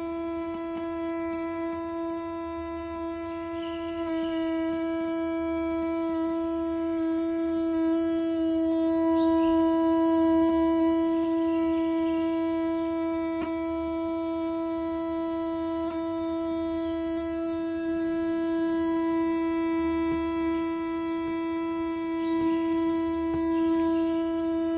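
A steady electronic tone with a stack of overtones, held at one pitch without fading and cutting off abruptly at the end.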